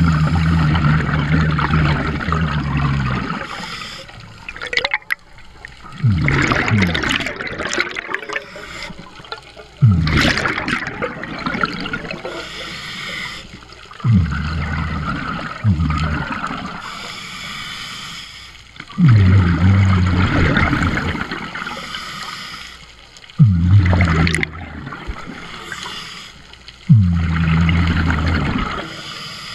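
A scuba diver breathing through a regulator underwater. Each breath in is a hiss and each breath out is a loud, low burst of bubbles, repeating every three to four seconds.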